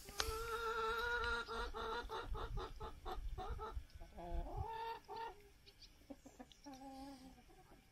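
Domestic hens clucking and calling: drawn-out calls with a run of quick clucks in the first half, and lower, shorter calls near the end.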